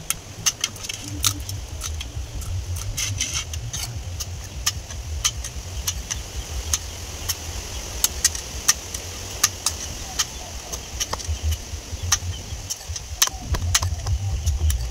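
Knife chopping the pointed tips off freshwater snail shells against a wooden block: a string of sharp, irregular clicks and knocks, a few a second, over a steady low rumble.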